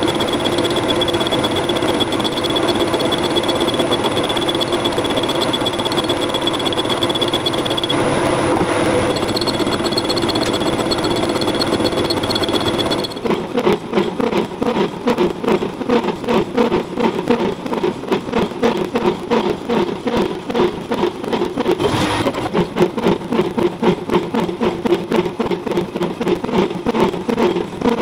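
CNC lathe set up as a makeshift mill, running a cut into a sawn steel workpiece: a steady machine whir with a high whine. About halfway through it turns into a rapid, regular pulsing.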